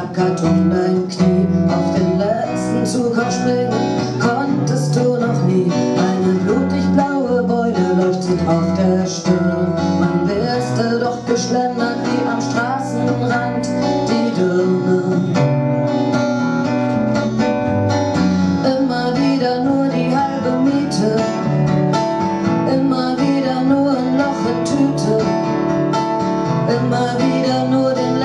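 Live band music led by a strummed acoustic guitar, playing steadily.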